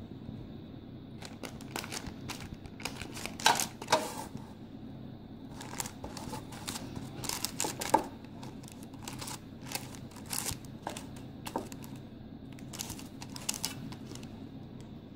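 Metal ice cream scoop pressing and scraping soft ice cream into a parchment-lined loaf tin, with the baking paper crinkling. Irregular scrapes and clicks, sharpest around 3 to 4 seconds in and again about 8 seconds in, over a steady low hum.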